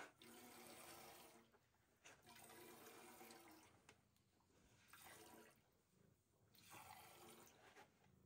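Faint streams of milk squirting into a stainless-steel pail as a cow's teats are hand-stripped at the end of milking. The sound comes in about four short spells, each a second or so long.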